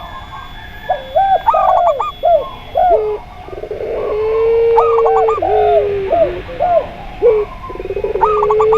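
Several doves cooing together: zebra dove (perkutut), spotted dove (tekukur) and puter pelung dove. There are quick clusters of short up-and-down notes and short rounded coos. A long, drawn-out, steady coo sets in about midway and again near the end.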